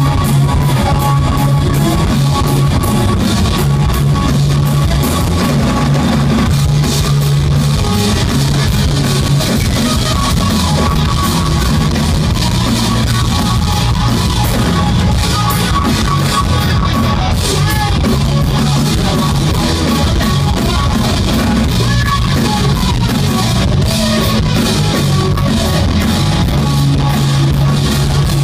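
A live rock band playing loudly: electric guitar over a drum kit, heard from within the audience.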